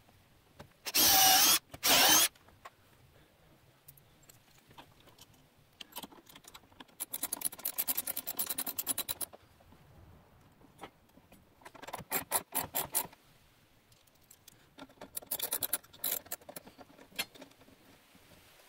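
A cordless drill with a twist bit runs in two short bursts, pre-drilling through the steel plate's hole into the wooden stud. Then a ratchet wrench drives a 5/16-inch lag screw, its pawl clicking rapidly in three runs as the handle swings back and forth.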